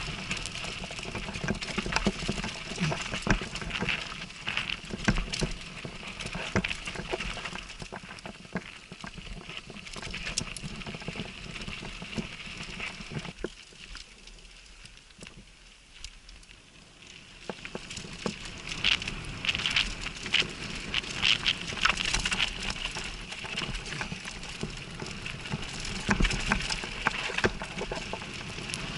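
Downhill mountain bike running fast over a dirt and gravel trail, heard from a helmet camera: tyres crunching and spraying grit, with many short knocks and rattles from the bike over the rough ground and rushing noise. It goes quieter for a few seconds about halfway, then picks up again.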